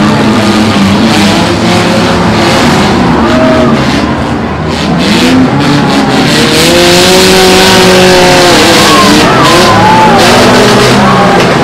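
Many compact cars' engines revving at once, their pitches rising and falling over one another in a loud, continuous din.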